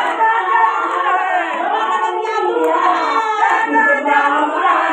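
Women singing a Shiv bhajan (devotional song) together, a lead voice on a handheld microphone with other voices joining in without a break.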